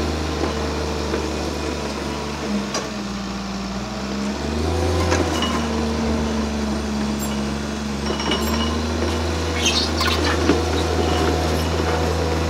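Diesel engine of heavy construction machinery running steadily. Its pitch drops and shifts as the load changes about two to four seconds in, then picks up again, with a few short metallic knocks and clinks.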